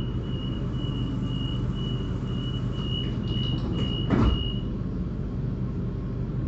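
Suburban train's door-closing warning beeping steadily, about two high beeps a second, over the carriage's steady hum. The doors shut with a thud about four seconds in, and the beeping stops just after.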